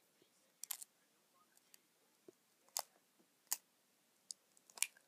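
A handful of short, sharp clicks and taps at irregular intervals, from a hand handling things right beside the phone's microphone.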